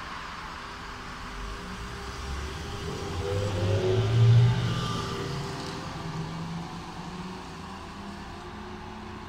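Astra Ikarus 415T trolleybus pulling away from a stop and passing close by. Its electric drive whines, rising in pitch as it gathers speed, is loudest about four seconds in, then fades as it moves off.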